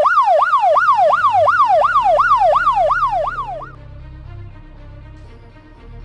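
Electric fence alarm siren sounding, a fast up-and-down electronic wail at about three sweeps a second: the sign of the fence being tampered with. It cuts off suddenly a little past halfway, leaving quieter background music.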